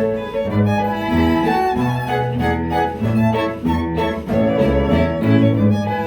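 Instrumental ensemble music: held melody notes over a low bass line changing about every half second to second, with no singing.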